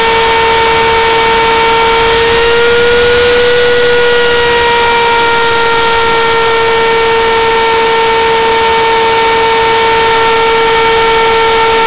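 Router spindle on a homemade CNC mill running at high speed while cutting into a wooden board: a loud, steady whine over a hiss of cutting noise. Its pitch rises slightly about three seconds in, then eases back.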